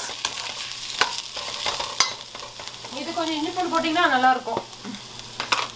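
Chopped onions sizzling as they fry in a stainless steel pan, with a metal slotted spatula scraping and knocking against the pan as they are stirred; sharp clicks come about once a second. A voice is heard briefly in the middle.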